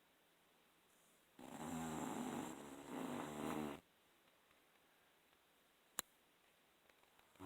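Snoring: one long, rasping snore that starts about a second and a half in and lasts a little over two seconds. A single sharp click comes near the end.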